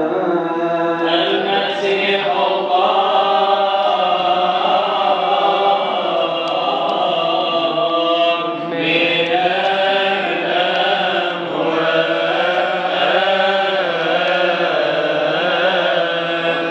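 Coptic Orthodox liturgical chant: male voice singing long held notes that turn slowly in pitch, through the church's microphone and loudspeakers.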